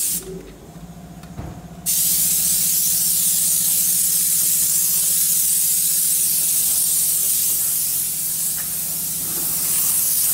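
Compressed air hissing steadily from a hand-held hose nozzle, which comes on about two seconds in. Under it, a car engine idles with a steady low hum.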